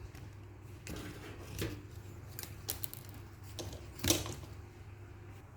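Scattered small clicks and knocks as a hose clip is worked off a washing machine's drain hose, the sharpest knock about four seconds in.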